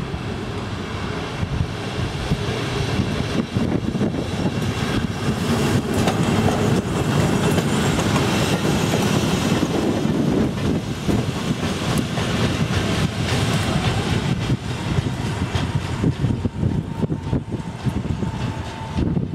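Class 73 locomotive and Network Rail test coaches passing close by, wheels clattering over the rails and pointwork. The noise builds to its loudest in the middle as the train goes past, then eases as it draws away.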